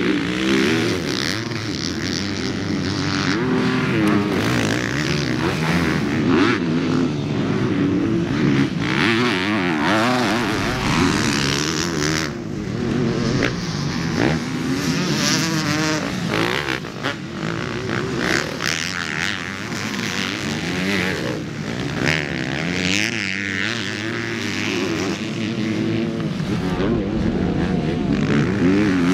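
Several motocross dirt bikes riding hard on a track. Their engine notes overlap and keep rising and falling as the riders open the throttle, shift and back off.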